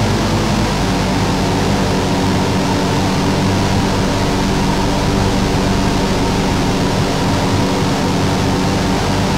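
Instrumental black metal: a dense, steady wall of heavily distorted guitar chords held over a thick hiss, with no vocals.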